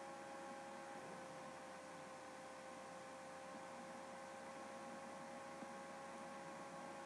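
Faint steady electrical hum with a few unchanging high tones over low hiss: background noise of the recording, with no other sound in it.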